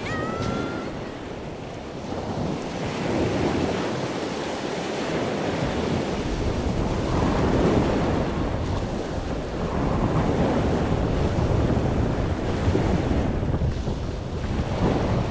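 Open-sea waves and water rushing past a sailing catamaran under way, with wind buffeting the microphone; the wash rises and falls in surges every few seconds.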